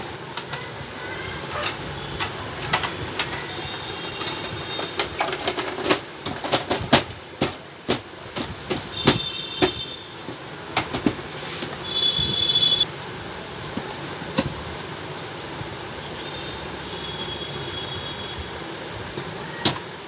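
Plastic housing of an Epson L130 inkjet printer being handled and screwed back together: irregular sharp clicks and knocks of plastic parts and a screwdriver, thickest in the middle, with a few short high squeaks as parts rub and screws are driven.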